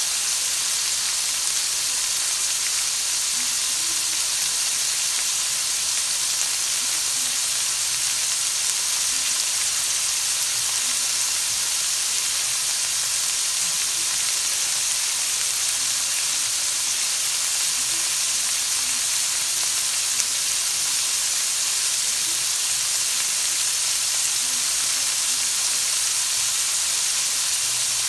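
Asparagus pieces frying in oil in a wok, giving a steady sizzling hiss.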